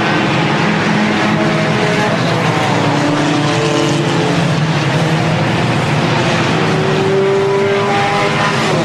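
A pack of stock cars racing on an oval, many engines running at once, their overlapping tones slowly rising and falling as cars pass. Near the end one engine's tone stands out, held steady for a couple of seconds.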